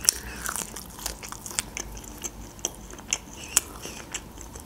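Close-up mouth sounds of a person biting into and chewing a spicy fried chicken wing, with scattered sharp clicks and crackles, the loudest about three and a half seconds in.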